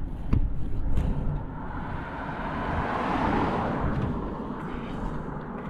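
A car driving past on the road, its tyre noise swelling and fading about halfway through, over a ragged low rumble of wind on the microphone.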